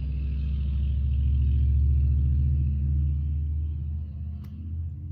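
Low engine rumble of a motor vehicle, swelling to a peak about two seconds in and fading away by about four seconds, with one sharp click near the end.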